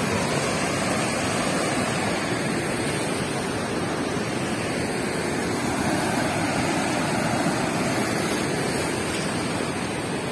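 Turbulent water rushing steadily through the open floodgates of a river weir, a constant churning wash of noise.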